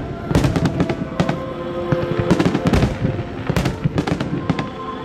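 Aerial fireworks bursting in a rapid, irregular series of sharp bangs, over music with sustained notes.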